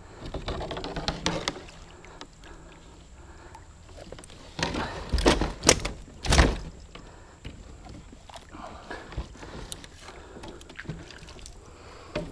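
Musky thrashing in a landing net at the side of a canoe: splashing water and knocks of the net and gear against the hull, loudest in a burst of splashes and thumps about five to six and a half seconds in.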